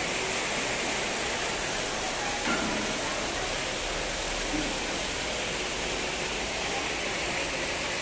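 Steady rush of running water, as from a small artificial waterfall feeding a fish pool.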